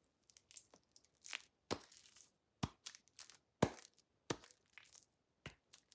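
Sticky fidget-toy material on the hands crackling and snapping as it is worked and pulled, in irregular sharp snaps, five or so louder ones among fainter crackles.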